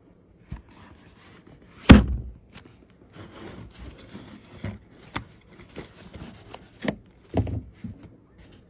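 Packaging being handled while a speaker box is unboxed: cardboard and plastic rubbing and rustling, with scattered clicks and knocks. The loudest is a sharp thud about two seconds in, and there is a double knock near the end.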